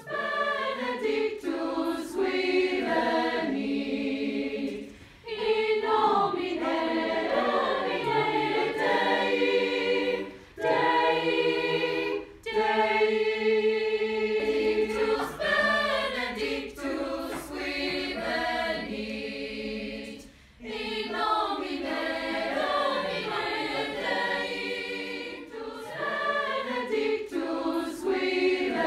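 High school concert choir singing together in several voice parts, in sung phrases broken by brief pauses.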